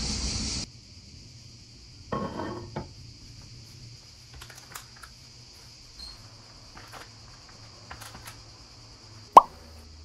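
Dishes and plastic takeaway food trays handled on a kitchen counter: a brief rustle of plastic, scattered light clicks and taps, and one sharp clack near the end, over a steady high insect chirring. The first moment is street traffic noise before it cuts off suddenly.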